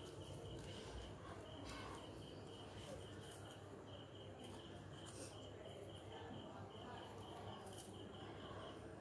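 A cricket chirping faintly and steadily, a high note pulsing several times a second, over quiet room tone, with a few soft clicks as wire stems are twisted by hand.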